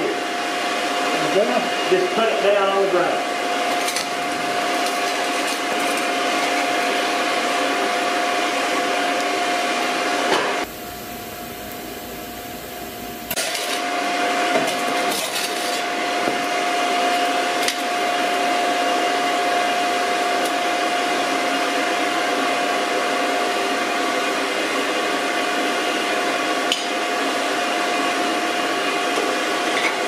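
Steady roar of a foundry furnace's air blower, with a constant whine running through it. It drops in level for a couple of seconds about eleven seconds in.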